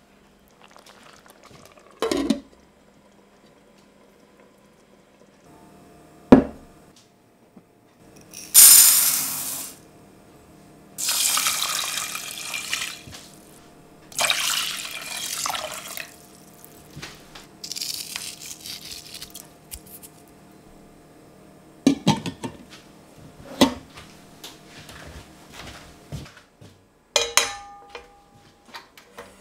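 Water poured from a jug onto brown rice in a steel bowl, in four splashing pours of a second or two each. Sharp knocks of kitchenware come before and after, with a metallic clank and short ring near the end.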